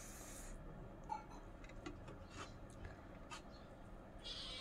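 Faint clicks and small handling sounds of fingers tearing at fried chicken leg pieces on a metal plate. Near the end a cat gives one short, high meow that falls in pitch.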